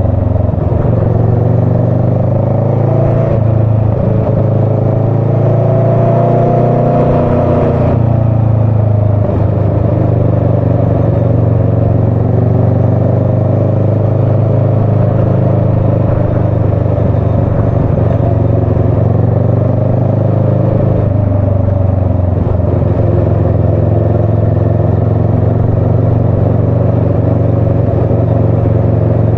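Motorcycle engine running at town speed under the rider, its pitch rising and falling as the throttle opens and closes, with a dip about eight seconds in and another change about two-thirds of the way through.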